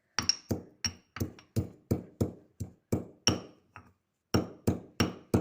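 Pestle pounding fresh ginger and tulsi leaves in a mortar, about three strikes a second with a short pause about four seconds in; each strike rings briefly.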